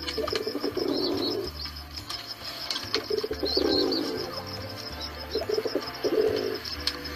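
Pigeons cooing: a low, throaty coo phrase comes about every three seconds, three times. Short high chirps from small birds sound between and over the coos.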